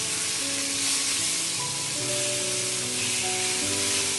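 Aair fish steaks sizzling steadily in hot soybean oil in a nonstick frying pan as they are turned over one by one with a spatula. Soft background music with held notes plays underneath.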